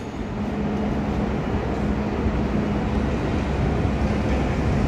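A train moving: a steady low rumble with a faint hum, slowly growing louder.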